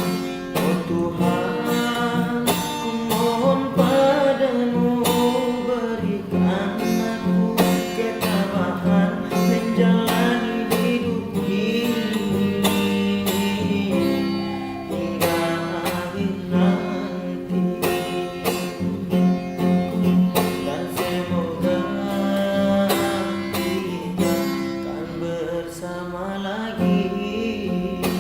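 A teenage singer's voice with an acoustic guitar strummed in a steady rhythm.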